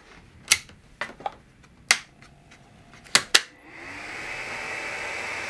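A few sharp clicks and knocks as plugs and cables are connected, then, about three and a half seconds in, small electronics cooling fans start up with a steady whir that builds for about a second as the laser controller box and module are powered on.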